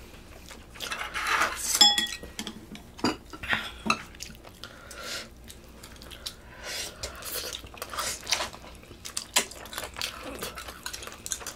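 Spoons and chopsticks clinking and scraping against bowls and the serving pot during a meal, in scattered short knocks, with one clear ringing clink about two seconds in.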